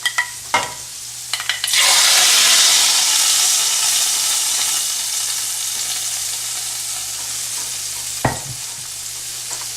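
Hot oil tempering of mustard seeds, fenugreek seeds and curry leaves poured into the fish curry, sizzling loudly from about two seconds in and slowly dying down. A few clinks of the pan come before it, and there is a single knock near the end.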